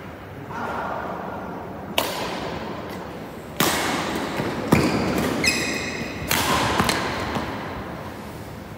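Badminton rally: about five sharp racket strikes on a shuttlecock, each ringing on in a large hall, with a short high squeak of court shoes on the synthetic floor between them.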